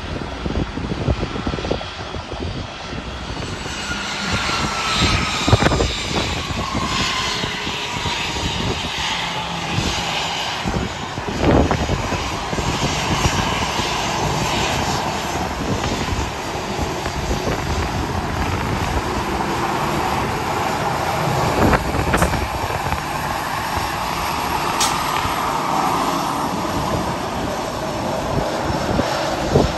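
Airliner's jet engines passing, a whine that falls steadily in pitch over a broad roar that swells again near the end. Gusty wind buffets the microphone throughout.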